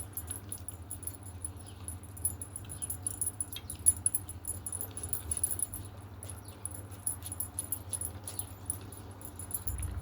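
Manchester terrier puppy eating wet food mixed with biscuits: rapid small clicks of chewing and licking, with light metallic clinks.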